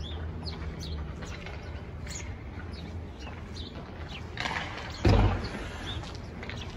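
Footsteps of a person walking, with small birds chirping briefly now and then. A louder rush and a low thump come about five seconds in.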